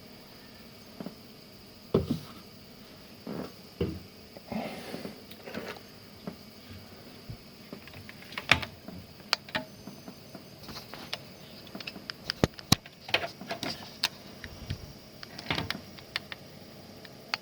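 Scattered light clicks, taps and knocks of tools and small parts being handled on a repair bench, with a quick run of sharp ticks through the middle.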